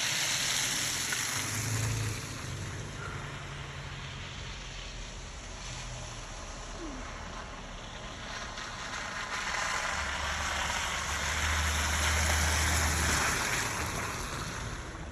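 Traffic on a wet, slushy road: tyre hiss and engine hum of passing vehicles, with one swelling louder and fading about ten to fourteen seconds in.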